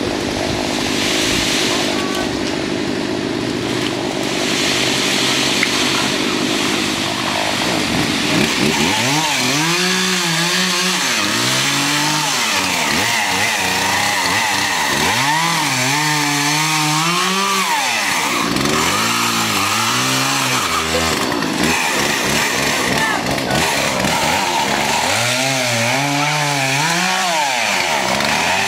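Two-stroke chainsaw cutting up fallen tree branches. From about eight seconds in it is revved in four long bursts, its pitch rising and falling as it works through the wood.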